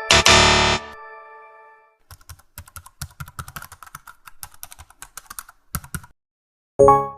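Computer keyboard typing: a run of quick, irregular key clicks lasting about four seconds. It is preceded by a short, loud burst of noise at the start, and a short ringing tone sounds near the end.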